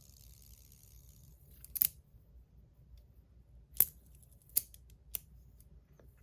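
Four sharp metallic clicks from a stainless steel fidget spinner being handled, the first about two seconds in and the rest closer together near the end.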